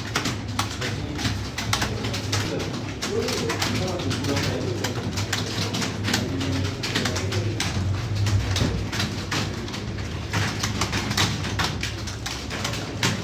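Pigeons cooing, over a dense, irregular patter of short clicks and a steady low hum.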